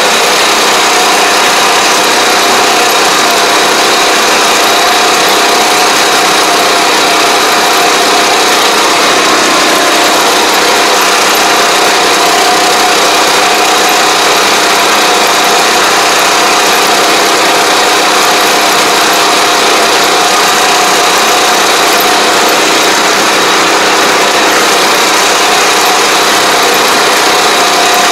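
Engine of a ride-on pesticide sprayer running loud and steady at constant speed while the machine sprays, with a steady high whine over the drone.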